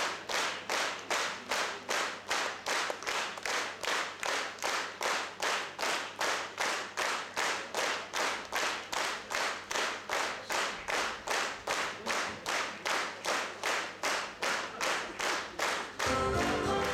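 A theatre audience clapping together in time, a steady beat of about two and a half claps a second. Near the end the orchestra starts playing.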